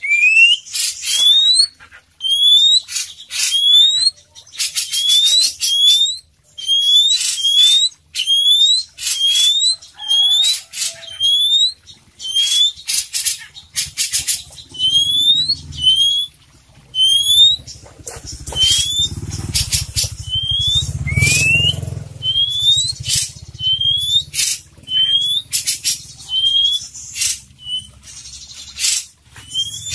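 Caged oriental magpie-robin (kacer poci) singing continuously: a string of short rising whistles, about one a second, mixed with harsh scratchy notes. A low rumble rises and fades in the middle of the stretch.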